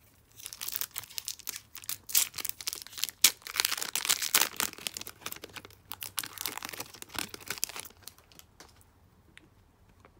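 Foil wrapper of an O-Pee-Chee hockey card pack crinkling and being torn open by hand, a dense crackling that stops about eight seconds in.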